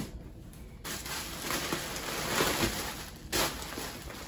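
Hands rummaging in bubble wrap inside a cardboard box: plastic crinkling and rustling, with a short sharp noise a little past three seconds in.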